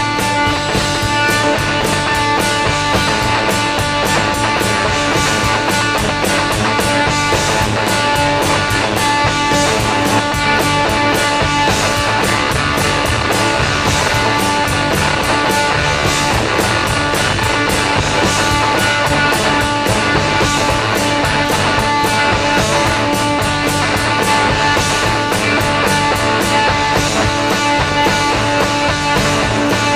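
Live rock band playing an instrumental passage with electric guitars, bass and a steady drum beat, loud and without vocals.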